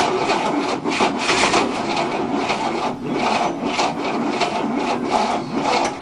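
Starter of a 1967 Cadillac's 429 V8 engaging with a sharp click, then cranking the engine over slowly in an uneven, rasping rhythm without it firing. The battery is too weak to spin it fast enough to start.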